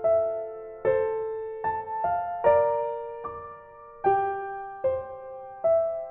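Background music: a slow, gentle piano melody, single notes struck about once or twice a second and left to ring.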